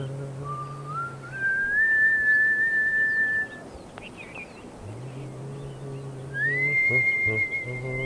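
A man singing long held low notes of a ghazal melody, wordless at this point, with a second person whistling along in long sustained notes that step up in pitch. The voice drops out briefly in the middle while the whistle holds, then both return.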